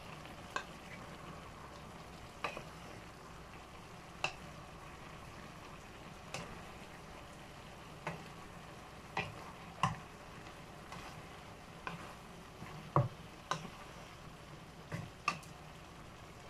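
Vegetables and meat for pinakbet frying in a nonstick pan over a steady low sizzle, while a spatula stirs them and knocks against the pan at irregular moments every second or two.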